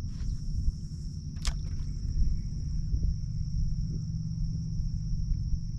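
Insects in the marsh grass giving a steady high-pitched drone, over a low rumble of wind on the microphone. Two short sharp clicks come about a quarter second and about a second and a half in.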